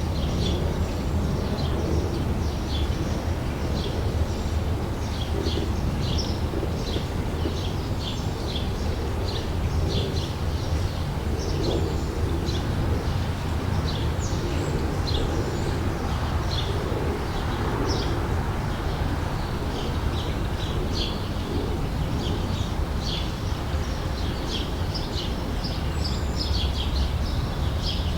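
Outdoor summer ambience: birds chirping and calling throughout, many short high chirps, over a steady low rumble.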